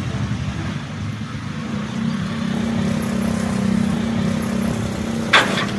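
An engine running steadily, swelling slightly and easing off, with a short sharp burst of noise near the end.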